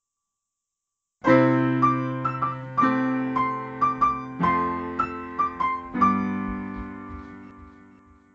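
A short solo piano phrase: four held chords with a quicker melody of single notes above them, starting about a second in and ringing away to a fade near the end.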